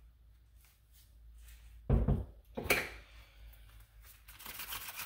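Two knocks about a second apart as things are handled on the countertop, then, from about four seconds in, a steady rubbing hiss of gloved palms rolling a lump of plumber's putty into a rope.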